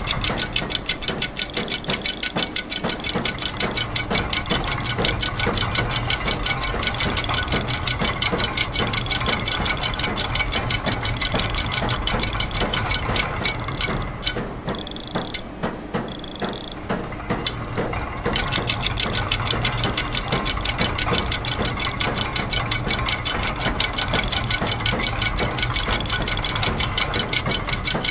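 Layered loops of factory machine sounds: dense, rapid ratchet and gear clicking over a low steady machine hum, forming an even mechanical rhythm. The clicking thins out for a few seconds about halfway through, then returns.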